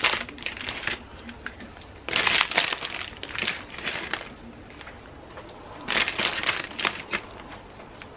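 Plastic bag of shredded salad crinkling in bursts a few seconds apart as it is shaken out.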